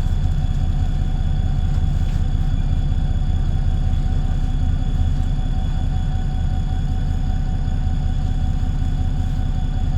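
VDL SB200 Wright Pulsar 2 single-deck bus heard from inside the saloon: a steady engine drone with a constant whine above it.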